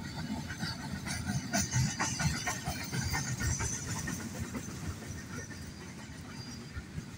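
Freight wagons of a departing diesel-hauled goods train rolling past, wheels clicking and clattering over the rail joints with a hissing screech and a low rumble. The sound eases off over the last couple of seconds.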